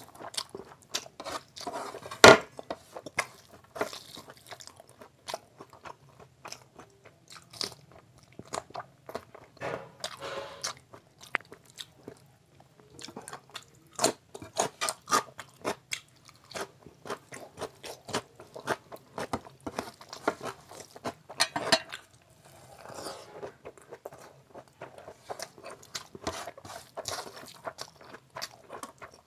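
Close-up eating by hand: chewing and wet mouth smacks of fried rice and curry, with fingers squelching rice through the gravy on a metal plate. Many short clicks, and one sharp, loud click about two seconds in.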